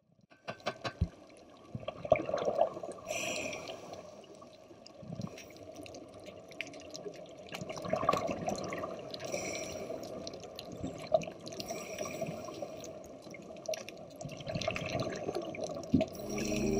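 Underwater recording: a steady muffled water noise with scattered clicks, and a burst of bubbling about every three seconds, like a scuba diver's exhaled breath.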